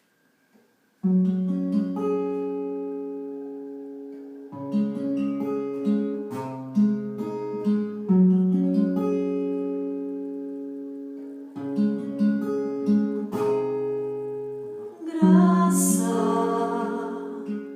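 Acoustic guitar playing a slow intro of single struck chords, each left to ring and fade before the next. Near the end a voice begins singing over the guitar.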